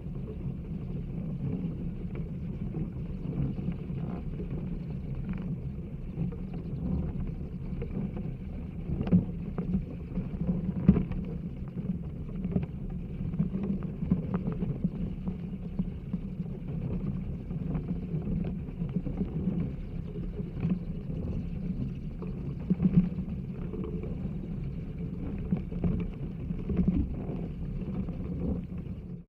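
Hundreds of bats flying out of a roost: a steady rushing flutter of wings with scattered sharp clicks.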